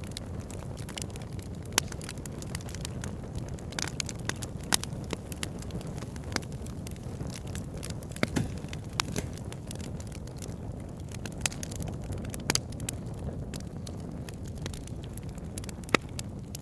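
Wood fire burning: a steady low rush of flame with frequent sharp crackles and pops from the burning wood, a few of them louder than the rest.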